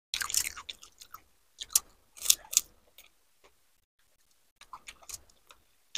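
Close-up chewing of pani puri: the crisp puri shell crunches in several loud bursts in the first three seconds, then softer wet chewing clicks follow about five seconds in.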